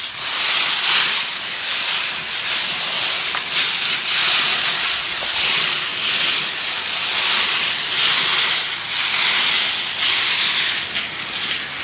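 Hose spray nozzle hissing as it sprays water over a screen tray heaped with wet-tumbled brass cartridge cases, rinsing the soap off them. The hiss swells and dips as the spray is swept across the pile.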